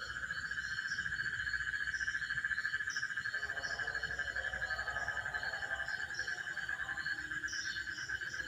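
Asian common toad calling: one long, rapid, pulsed trill held on a single pitch without a break. Insects chirp steadily beneath it.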